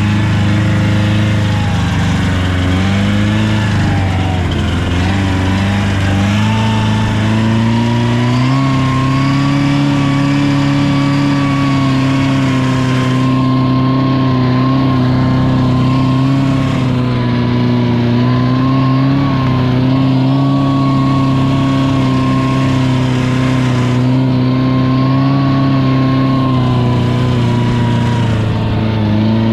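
Car engine running while driving. Its pitch climbs about eight seconds in, then holds steady with small wavers.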